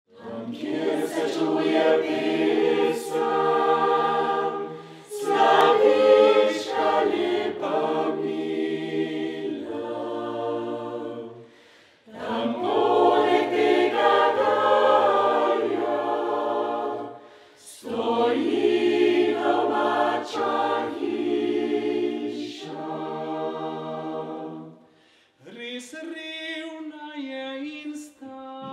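A Carinthian Slovenian mixed choir of men's and women's voices singing unaccompanied, in long phrases with brief breaks between them. Near the end the sound thins to fewer, higher voices.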